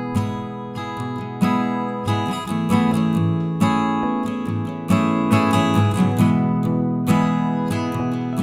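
Background music: acoustic guitar strumming and plucking chords in a steady rhythm.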